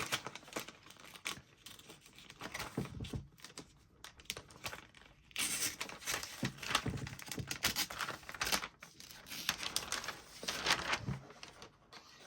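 Gift packaging being cut open with a small tool and torn by hand, with irregular crinkling and rustling of the wrapping.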